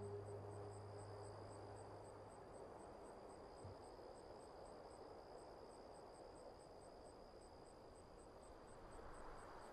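Faint insects chirping: a steady high-pitched buzz with a higher chirp pulsing about four times a second, while low ambient music fades out in the first two seconds.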